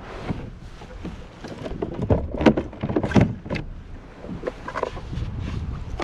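Knocks and clatter of gear being handled on a plastic fishing kayak as an orange plastic fish-measuring board is pulled out to measure a fish. The knocks are thickest and loudest around the middle.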